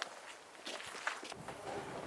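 Faint footsteps with a few light knocks.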